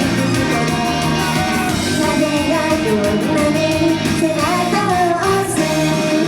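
Japanese idol pop song performed live: singing over a loud, full backing track with a steady beat.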